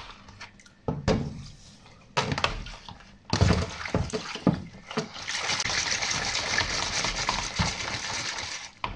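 A few knocks of a plastic basin being handled, then a hand swishing and splashing diluted homemade liquid soap in a plastic basin, a steady sloshing from about three seconds in, whipping the soap up into foam to test its lather.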